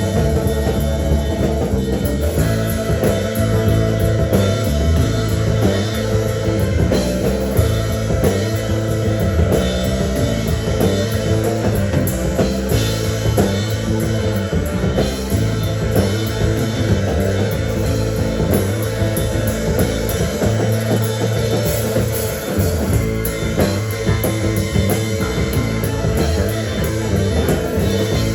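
A rock band playing live, with guitar and a drum kit.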